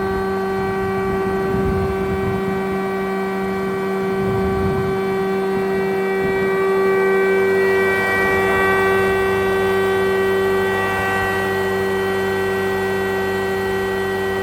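Jaroma DSMB 63 thickness planer running with a steady whine from its four-knife cutterhead and 5.5 kW motor. For a few seconds in the middle it grows louder and rougher as a board is fed through and planed.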